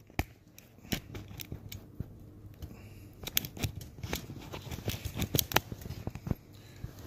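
Handling noise from a phone being set up and clipped onto a tripod: an irregular run of clicks, taps and rubbing close to the microphone, busiest from about three to six seconds in, over a low steady hum.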